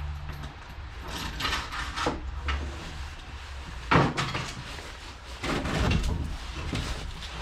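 Scraping and knocking of tools and parts while the rear strut is being taken off the car, with one sharp knock about four seconds in, over a steady low hum.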